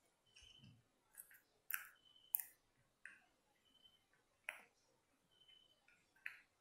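Small screwdriver clicking against a screw as it drives the screw through an LED board into the bulb's heat sink: a few sharp, light clicks at uneven intervals.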